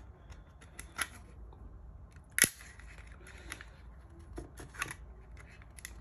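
Scissors cutting through a thin plastic water bottle: a run of small snips and crinkling clicks, with one sharp, loud snap about two and a half seconds in.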